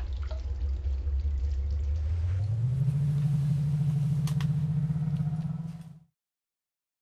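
A low, steady motor drone that rises in pitch about two and a half seconds in and holds there, then cuts off abruptly about six seconds in.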